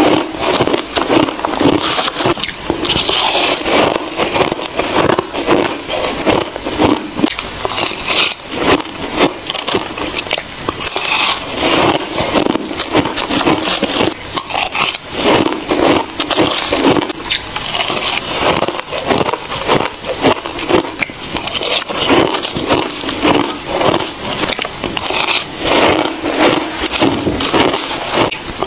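Close-miked crunching and crackling of fine white freezer-frost ice being chewed, with a metal spoon scraping and scooping through the ice in a plastic tub. The crunching is dense and unbroken, with louder bites every second or so.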